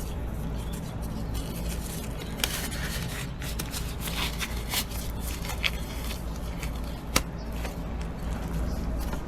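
Light clicks and faint scrapes of hand tools and small metal parts being handled while working on a motorcycle's gear shift linkage, scattered and irregular over a steady low hum, with one sharper click about seven seconds in.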